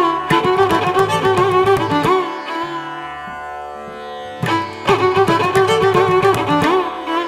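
Instrumental background music in an Indian classical style: a gliding string melody that drops to a softer held tone for a couple of seconds in the middle, then picks up again.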